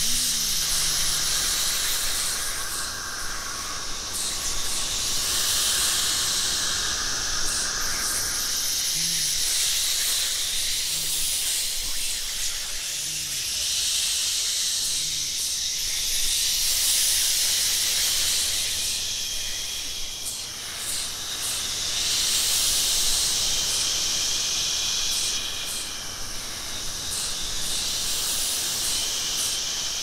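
A chorus of human voices imitating insects: layered hissing and buzzing that swells and fades every few seconds, with a few short low vocal chirps near the middle.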